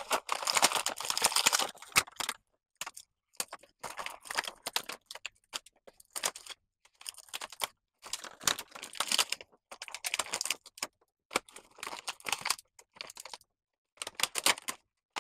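An action figure being worked out of its clear plastic packaging tray by hand: plastic crinkling and clicking in short bursts, with brief pauses between.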